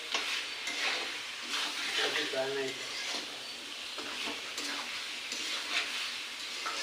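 Chicken curry sizzling in a pan as a spatula stirs it, scraping against the pan in irregular strokes; the spiced meat has been fried down until dry (kosha).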